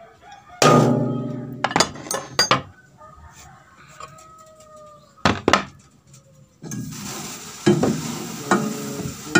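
Metal clanking and scraping at a Yanmar rice husker's roll housing as the husking rolls are handled by hand. A ringing clang comes under a second in, followed by a quick run of sharp clinks and knocks. Two more knocks come about halfway, and steady scraping with clinks fills the last third.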